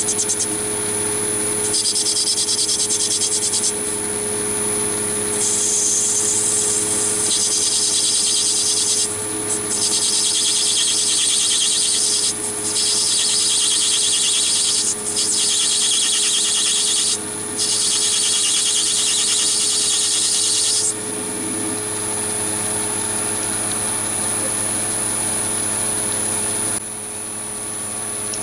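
Chinese mini lathe running steadily with its motor hum while a turning tool takes a light clean-up cut on brass bar stock. The cut is a high, hissing scrape that comes in stretches with short breaks from about two seconds in, then stops about three-quarters of the way through, leaving only the lathe running.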